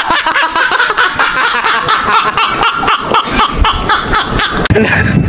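Two men laughing hard together, a fast unbroken run of high laughs.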